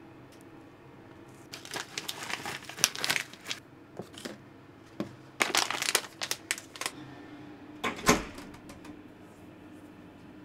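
Bath salt packaging crinkling as it is handled, in three bouts of crackly rustling: about a second and a half in, again around six seconds, and once more near eight seconds.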